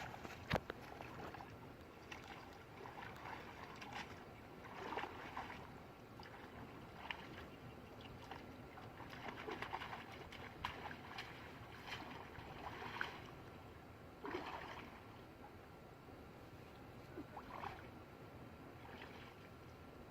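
Intermittent splashing and sloshing of water, in short irregular bursts every second or two, with a couple of sharp knocks at the start.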